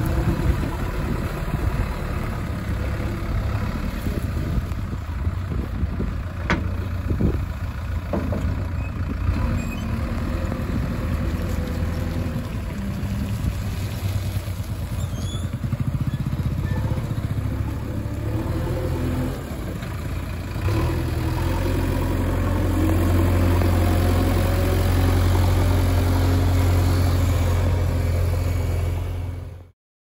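Four-cylinder diesel engine of a JCB 3DX backhoe loader running steadily, growing louder about 21 seconds in, then cutting off suddenly near the end.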